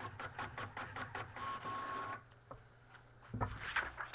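Printer running a page: quick regular clicks about five a second, then a steady whirring tone that stops about two seconds in, followed by a single thump.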